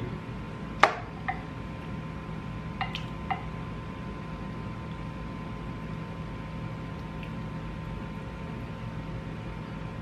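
A few sharp clicks and light taps of tableware while eating, the loudest about a second in and a small cluster around three seconds, over a steady low electrical hum.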